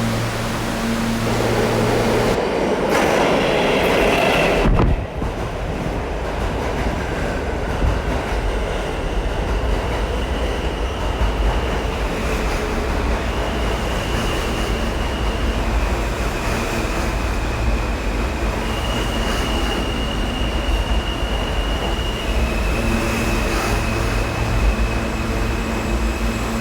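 R160 subway train running with a steady low rumble and high thin tones that step up and down in pitch. A loud rush of noise in the first few seconds cuts off suddenly about five seconds in.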